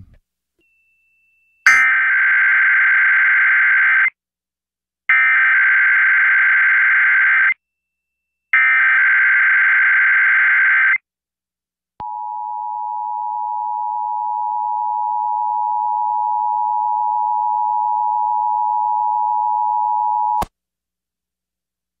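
Emergency Alert System test tones: three bursts of the SAME header's digital data screech, each about two and a half seconds long with a second's pause between, then about eight seconds of the two-tone EAS attention signal, which cuts off suddenly.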